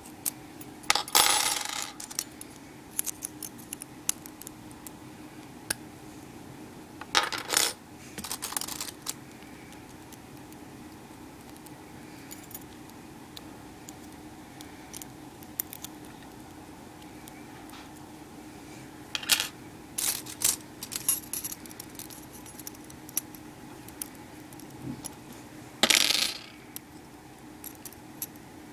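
Metal wire disentanglement puzzle pieces clinking and jangling as they are worked apart and set down, in several short bursts of rattling with scattered clicks between them, over a faint steady hum.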